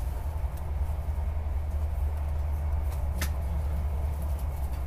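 Steady low rumble of a passenger train running, heard from inside the carriage, with a single sharp click about three seconds in.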